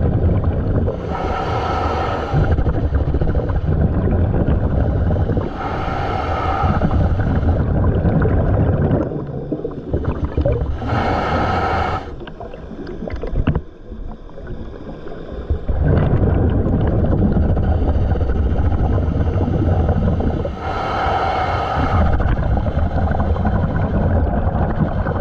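A scuba diver breathing through a regulator underwater: four short hissing inhalations through the demand valve, each followed by several seconds of low rumbling exhaust bubbles. The cycle pauses briefly a little past the middle.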